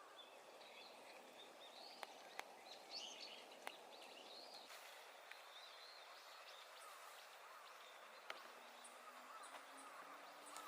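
Quiet outdoor ambience with faint, distant bird calls in the first half and a few sharp clicks scattered through it.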